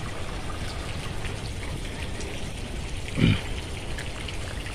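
Water trickling and running steadily through shallow water in a nearly drained koi pond, with a brief voice about three seconds in.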